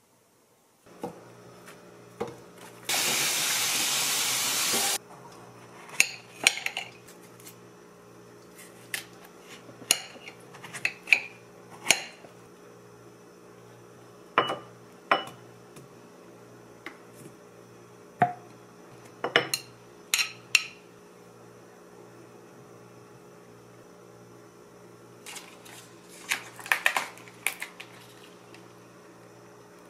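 Kitchen handling sounds: a glass bowl, a plastic yogurt bottle and a spoon are set down and knocked in scattered sharp clinks and taps while drinking yogurt is poured over strawberries. About three seconds in comes a loud, steady rushing noise that lasts about two seconds, and near the end a plastic juice pouch crackles as it is handled. A faint steady hum runs underneath.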